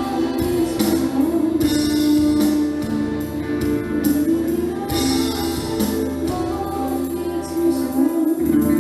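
School orchestra playing a song live, with held instrumental tones, some singing, and a tambourine shaken in short bursts every second or two.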